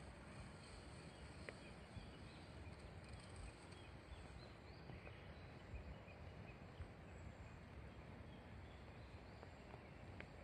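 Near silence: faint outdoor background noise with a low rumble.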